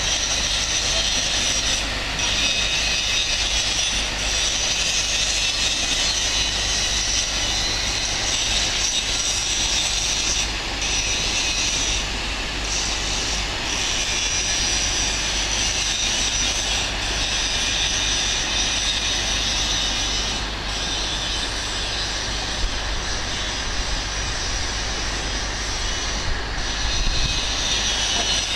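Steady rushing of river water flowing fast over rocks, a constant hiss with a low rumble underneath.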